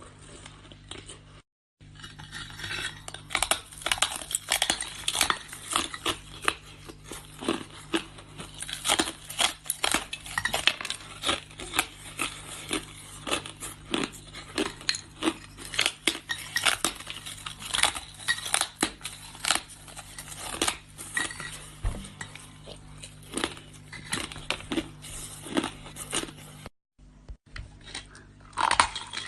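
Crushed ice crunching and clinking in a dense run of sharp, irregular cracks.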